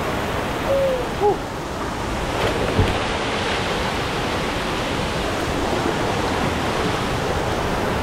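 Waterfall pouring into a river pool: a steady rush of water. A couple of short, high pitched chirps sound about a second in.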